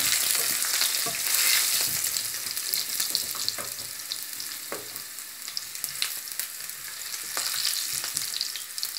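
Fenugreek seeds and garlic sizzling in hot oil in a pan, with scattered clicks and scrapes from stirring. The sizzle is loudest in the first couple of seconds, then eases a little.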